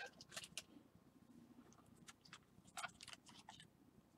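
Near silence with a few faint, scattered clicks and light rustles in small clusters.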